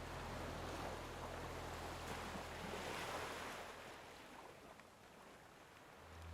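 Ocean surf: a wave washes in, swelling to a peak about three seconds in, then draws back and ebbs. A low steady hum lies underneath, drops out about halfway and returns at the end.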